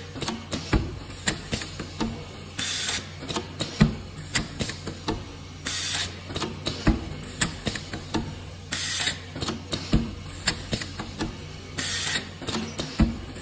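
Automatic CNC drawn-arc stud welding machine running its cycle: a short hiss about every three seconds, four times, with sharp clicks and snaps from the welding gun and gantry in between, over a steady low hum.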